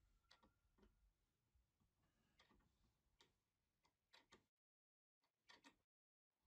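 Faint, irregular small clicks of a hex key turning a screw in a plywood block, about two a second, with two brief gaps of dead silence in the second half.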